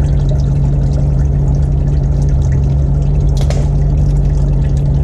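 Engine oil pouring in a steady stream from the drain-plug hole of a GMC 1500HD's 6.0L oil pan, with a constant low hum underneath. There is a brief sharper sound about three and a half seconds in.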